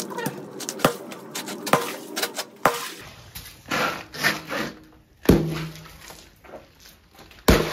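A small hatchet chopping through pond ice: several sharp cracking strikes, then crunching and scraping of broken ice chunks, and two heavier thumps later on.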